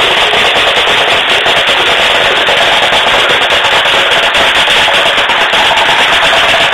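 Airsoft gun firing full-auto in one long, continuous rapid stream of shots, very loud.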